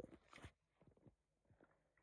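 Near silence: room tone with a brief faint noise right at the start and a few faint ticks.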